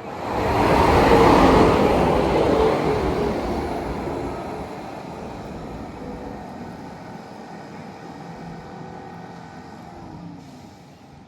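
A vehicle passing close by: a loud rush of noise that swells suddenly, then fades away slowly over several seconds.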